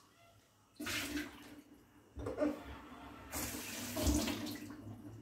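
Kitchen tap running into the sink in three spells of one to two seconds each, turned on and off, with water splashing as a small bowl is rinsed.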